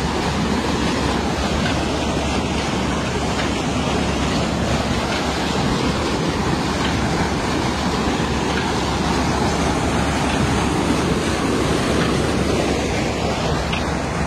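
Tubewell water gushing steadily from two pipes into a concrete tank, a heavy constant rush and splash, with a steady low machine hum underneath.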